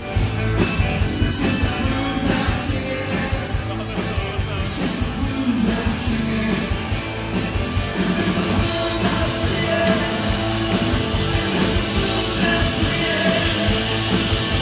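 Live band playing a rock song, with a singer over electric guitars and drums and regular cymbal hits.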